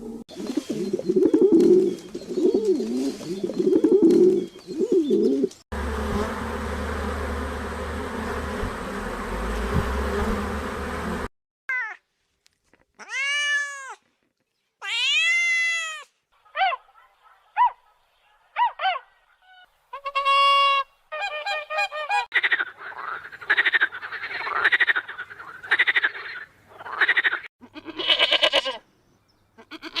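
A string of different animal calls cut one after another. First come wavering low-pitched grunting calls, then a noisy stretch over a low rumble. After a short gap there are separate high, arched calls that rise and fall, and near the end rapid rasping calls.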